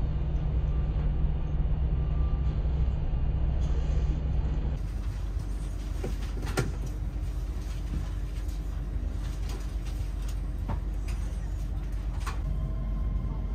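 Steady low hum and rumble inside an LNER Azuma train carriage standing at a platform. The hum thins about five seconds in, and a few light clicks and knocks follow.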